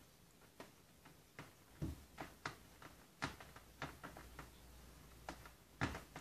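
Young kittens stirring in a fabric playpen: faint, irregular little clicks and ticks, about two a second at uneven spacing, the sharpest near the end.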